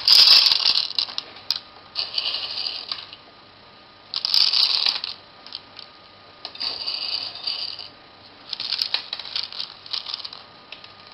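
Electric coffee grinder run in five short bursts of about a second each, coffee beans rattling and crunching against the blades, with quieter gaps between the bursts.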